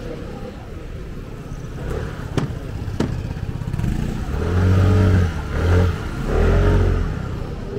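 A motor vehicle engine close by, swelling and easing three times as the throttle opens and closes, over a steady low street rumble. Two sharp clicks come a little before the engine swells.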